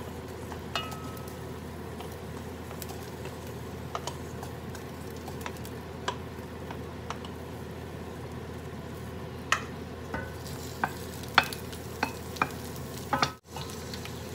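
Onions sizzling in hot oil in a stainless steel pot as a wooden spoon stirs them, with scattered sharp taps and scrapes of the spoon against the pot. The taps come more often in the last few seconds.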